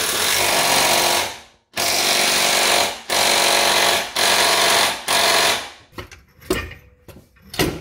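A handheld power tool of the impact-wrench kind runs in five bursts of about a second each, each with a fast hammering rattle, as bolts are worked under the car. It is followed by a few short metal knocks near the end.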